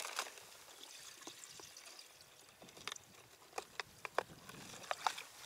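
Water trickling and sloshing in an ice hole as a plastic-bottle minnow trap is worked in it, with several sharp clicks and taps in the second half.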